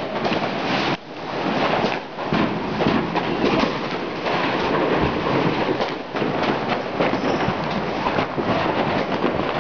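Dense, continuous crackling and popping of many fireworks and firecrackers going off at once, with a steady stream of sharper cracks throughout.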